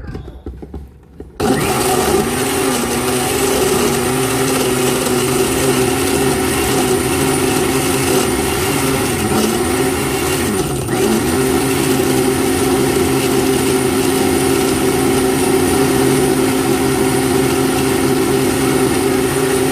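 Countertop blender starting up about a second and a half in and running steadily, blending ice cubes, banana and liquid into a shake. Its motor pitch dips briefly twice around the middle as the load shifts, then holds steady until it is switched off near the end.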